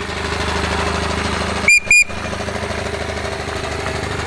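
Two short, sharp toots on the steam whistle of a miniature steam road engine, one right after the other, over the steady running of the parading engines.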